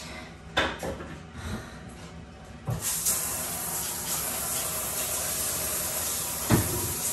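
A few light knocks, then a handheld shower is turned on about three seconds in and its spray hisses steadily, with a single thump near the end.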